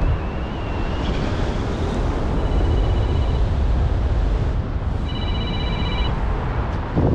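Wind buffeting the helmet camera's microphone in paraglider flight, a loud steady rumble. Over it a mobile phone rings twice, a trilling electronic ring lasting about a second each time.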